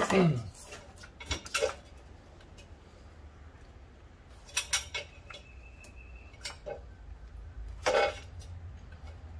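A reciprocating saw's blade clinking and tapping against a rusty steel exhaust pipe as it is set in place, before any cutting: a few sharp metal clinks at uneven intervals, the loudest near the end. A short falling tone comes right at the start.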